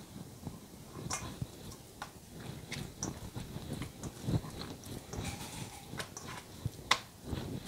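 Hands pressing and folding soft, milk-moistened paratha dough in a stainless steel bowl, making irregular soft slaps and sticky clicks, with one sharper click about seven seconds in.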